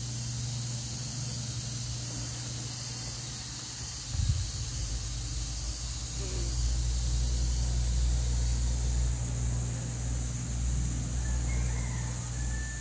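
Steady background hiss with a constant low hum, and one brief soft thump about four seconds in.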